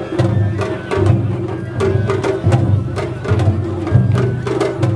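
Japanese festival float music (matsuri bayashi): taiko drums struck in a running rhythm, with sharp metallic clicks and some held pitched notes over them.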